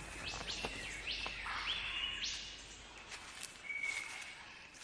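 Superb lyrebird singing: a string of quick, upward-sweeping whistled notes that level off, then a short held whistle near the end.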